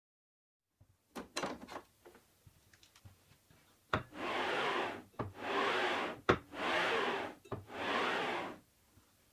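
A plywood sliding block is pushed back and forth along aluminium extrusion rails. The block makes four rubbing slides of about a second each, with a sharp knock as each stroke begins. A few light clicks and rubs come before them, about a second in.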